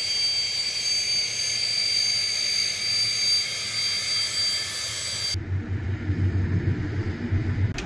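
Sukhoi Su-25's twin turbojet engines running on the ground: a steady high whine of several held tones over a low rumble. A little over five seconds in, the whine drops out abruptly and a deeper, fluctuating low engine rumble takes over.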